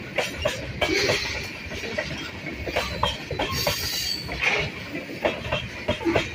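Freight train of tank cars and covered hoppers rolling past close by: steel wheels clicking and knocking irregularly over the rail joints over a low rumble, with a brief high wheel squeal about halfway through.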